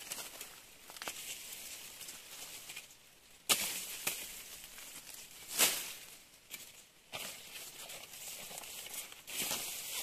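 A machete chopping through Napier grass stalks, a few sharp slashing strokes with the leaves rustling as the grass is grabbed and pulled between cuts.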